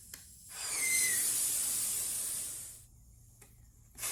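Compressed air hissing out of a motorcycle tire's valve stem with the valve core out, deflating the tire. One hiss about two seconds long carries a brief whistle around a second in, and a second hiss starts near the end.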